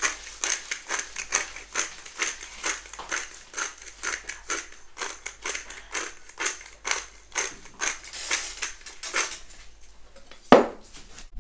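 Hand pepper mill grinding peppercorns in quick repeated twists, about three crunches a second. A single sharp knock comes near the end.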